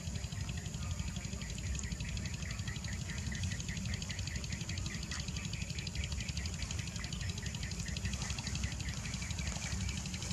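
Steady low wind rumble on the microphone, with faint rhythmic chirping, about four chirps a second, for several seconds in the middle.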